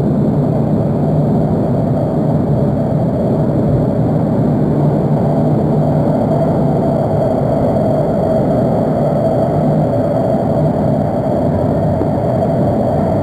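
Steady rumble and whir of an AS-14 metro train running between stations, heard from inside the car, with a faint steady whine over the rumble.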